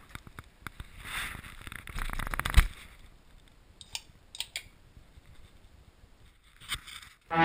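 Handling noise from a body-worn action camera: rustling of clothing and gear with scattered clicks and knocks. A quick rattle builds up and ends in a sharp knock about two and a half seconds in, followed by a few lighter clicks.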